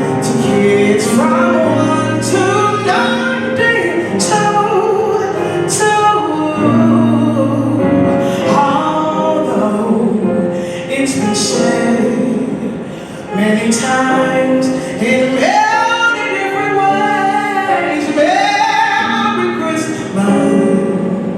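Live music: voices singing a melody with held and gliding notes over instrumental accompaniment, with regular sharp percussive strokes.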